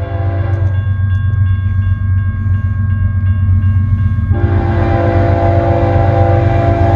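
Diesel freight locomotive's multi-chime air horn sounding for a grade crossing: a blast that ends just under a second in, then after a pause of about three and a half seconds another long blast. In the pause a crossing bell rings at about three strokes a second, over a steady low rumble.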